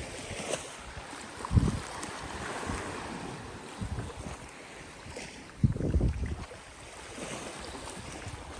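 Wind buffeting the microphone in irregular gusts, the strongest about a second and a half in and a longer one around six seconds in, over the steady wash of small waves against the shore.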